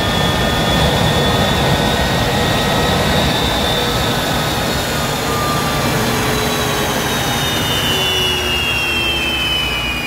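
Westinghouse J34 turbojet running on a test stand: a loud, steady rush of exhaust noise with several high whines on top, which slowly fall in pitch over the second half.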